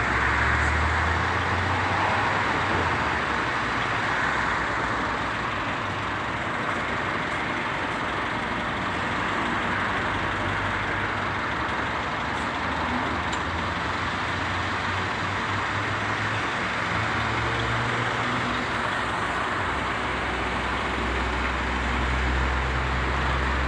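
Motor-vehicle engine idling with a steady low hum, under a constant wash of street traffic noise.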